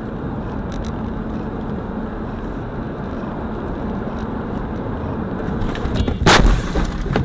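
Steady road and engine noise inside a moving car, then a sudden loud crash about six seconds in as the car collides with a car pulling across in front of it. A second, smaller knock follows near the end.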